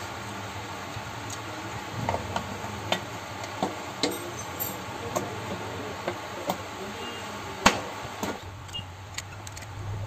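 Scattered small metallic clicks and taps of motorcycle engine parts being handled and fitted on the clutch cover, with one sharper click near the eight-second mark, over a steady low hum.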